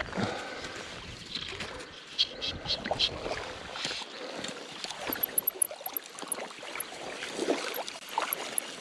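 Shallow river water sloshing and lapping close by as a wading angler plays a hooked rainbow trout, with short splashes, ticks and the rustle of fly line being stripped in by hand.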